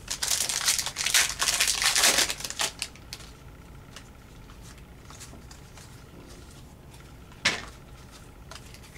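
Panini Contenders trading-card pack wrapper crinkling as it is opened, for about three seconds. Then quieter handling, with one short sharp rustle about seven and a half seconds in.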